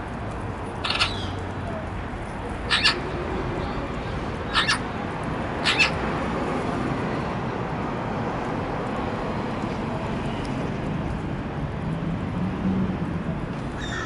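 Western jackdaws giving short, sharp calls, four of them in the first six seconds, some doubled, over a steady low background rumble.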